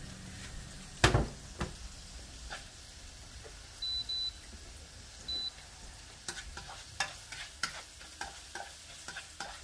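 Chopped onion and garlic sizzling gently in oil in a nonstick wok, with a plastic spatula knocking and scraping against the pan: one sharp knock about a second in, and a run of scrapes and clicks in the second half. Three short, high electronic beeps sound around the middle.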